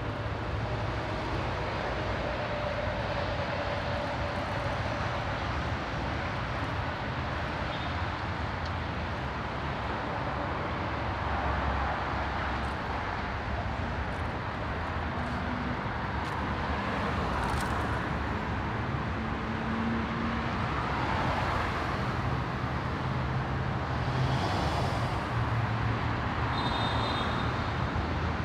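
Car driving: steady tyre and road noise with a low engine rumble.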